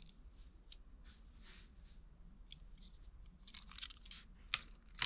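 Rustling and light clicks of diecast model cars and their packaging being handled, with a brief flurry of rustling and two sharper clicks near the end.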